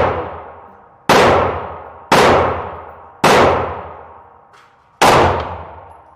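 Rifle shots: four sharp reports about a second apart, the last after a longer pause, each ringing out in a long echoing decay.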